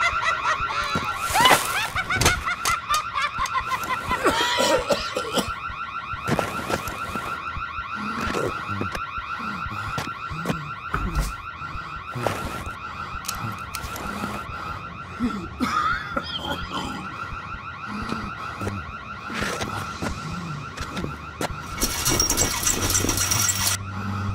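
An electronic alarm warbling steadily in the background, with scattered knocks over it and a harsh rattle near the end.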